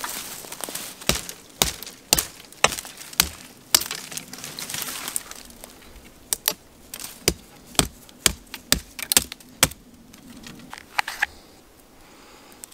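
Dry wood cracking: a run of about twenty sharp, irregular cracks, roughly two a second, that stop about eleven seconds in.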